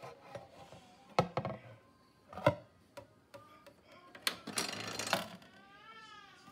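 Handling noise on an RCA Victor portable tube record player: two loud knocks, about a second in and again at two and a half seconds, with scattered light clicks, then about a second of hiss and a short wavering tone near the end.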